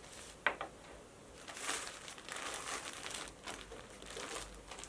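Plastic packaging crinkling and rustling as a parcel is handled and opened, with a sharp click about half a second in.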